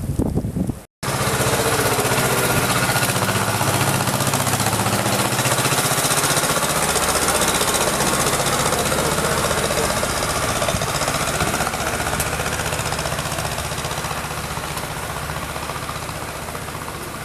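An engine running loud and close with a rapid rattling beat, starting after a sudden cut about a second in and fading slightly toward the end.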